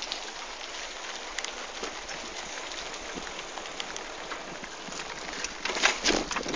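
Bicycle tyres rolling over paving: a steady hiss full of small ticks and rattles. Near the end comes a louder run of knocks and clatter.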